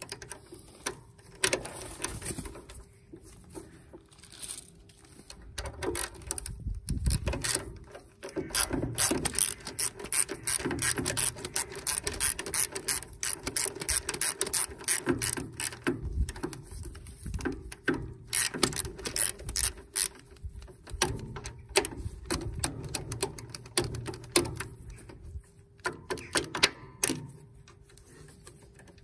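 Socket ratchet clicking in quick runs as a bolt is wound in, with a few knocks of tools at first and short pauses between runs.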